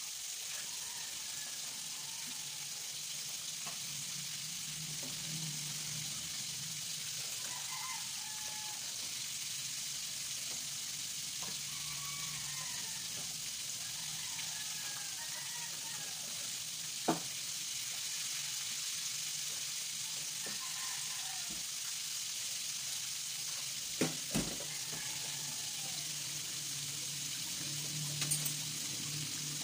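Breaded chicken pieces deep-frying in hot oil in a pan, a steady sizzle, with a few sharp clicks a little past halfway and near the end.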